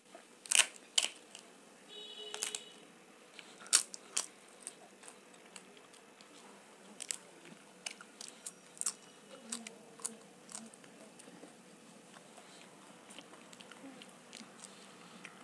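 Crisp papad being bitten and chewed close to the microphone. A few sharp, loud crunches come in the first four seconds, then softer, scattered crunches die away by about eleven seconds in.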